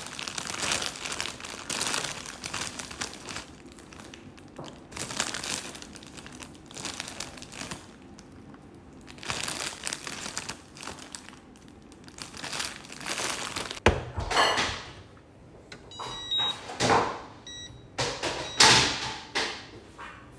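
Crinkly plastic vegetable bag being rustled, torn open and shaken out in repeated bursts of crackling, with vegetables dropping onto a plastic chopping board. About two-thirds of the way through comes a single sharp knock, then short faint beeps from a touch-control cooktop as its buttons are pressed.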